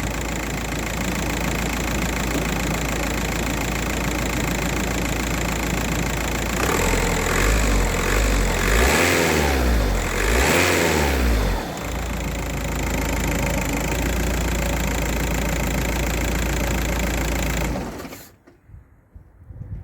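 Volkswagen Passat's 1.9 TDI four-cylinder diesel idling warm, with Liqui Moly Engine Flush Plus worked through its oil. It is revved up twice, falling back to idle each time, and the engine is switched off near the end.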